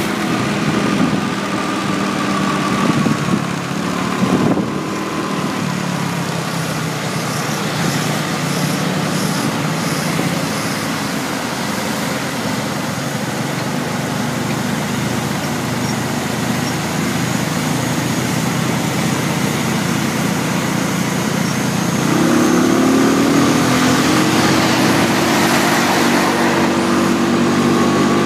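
Motorbike engine running steadily under load climbing a mountain road, with wind and road noise. About three-quarters of the way through, the engine revs up and gets louder in a rising whine.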